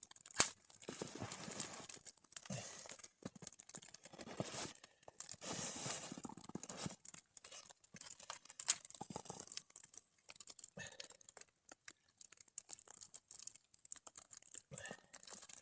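Hands working at starting a campfire: irregular rustling, crinkling and knocking of kindling and material, with one sharp snap about half a second in.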